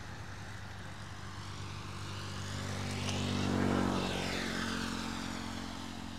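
Propeller aircraft flying over: a steady engine drone that slowly swells to its loudest about three and a half seconds in, then fades.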